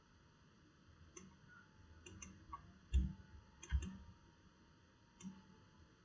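Faint, scattered clicks of a computer mouse and desk, about half a dozen. The loudest are two soft thuds about three and nearly four seconds in.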